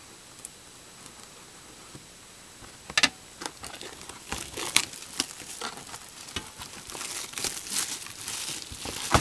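Plastic shrink-wrap being torn and crumpled off a cardboard card box by hand. After a quiet start, a sharp crackle comes about three seconds in, then dense, irregular crinkling.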